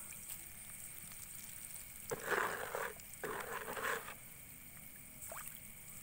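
Two short bursts of splashing and churning water, about a second long each and starting sharply, from a dense swarm of catfish fry thrashing at the surface of the pond as they feed.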